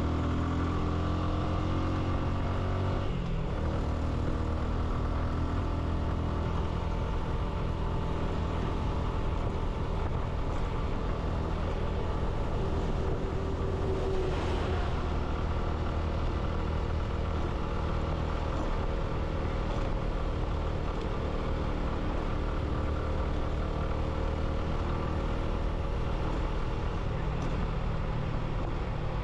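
Motorcycle engine running on the move, with road and wind noise. The engine note falls and then changes abruptly about three seconds in, then holds steady.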